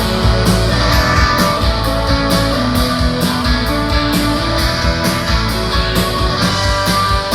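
Live band playing the instrumental intro of a pop-rock song: strummed guitar over a steady drum beat and bass.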